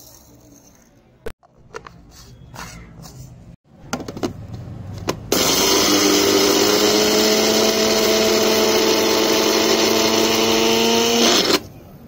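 Electric mixer grinder running steadily for about six seconds with an even motor whine, dry-grinding sugar and tea leaves in its small jar. It starts about five seconds in and cuts off abruptly near the end. Before it starts there are a few light knocks.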